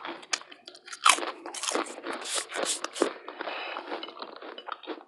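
Crunching of barbecue potato chips being eaten close to a clip-on microphone, in irregular crisp crackles and bites.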